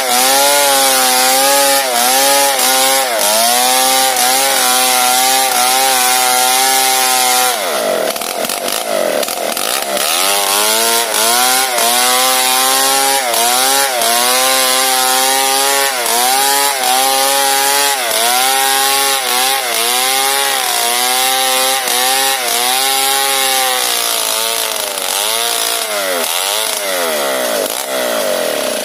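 Stihl MS 382 two-stroke chainsaw ripping a log lengthwise with an Oregon crosscut chain filed into a ripping chain. The engine runs at high revs, its pitch sagging under load and recovering every second or two, with a deeper bog about eight seconds in. Near the end the pitch rises and falls quickly.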